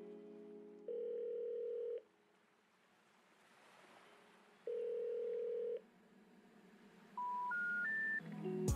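Telephone line tones: a steady ringing tone sounds twice, about a second each, then three short beeps rising in pitch near the end, the special information tone that comes before a 'number not in service' message.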